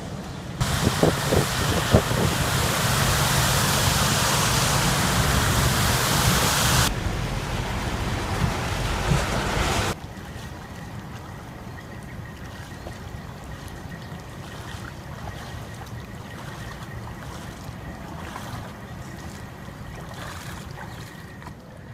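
Outdoor storm and floodwater ambience: a loud, steady rushing of wind and water that changes abruptly about 7 seconds in and drops to a quieter rushing about 10 seconds in.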